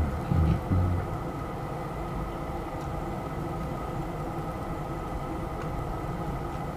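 A steady motor-like hum of several fixed pitches, with a few low thumps in the first second.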